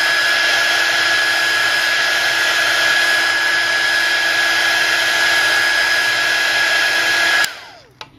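Handheld hot-air blower running steadily: a rush of air with a steady motor whine, warming the phone's screen to soften its adhesive. It switches off about seven and a half seconds in, the whine falling away as it stops.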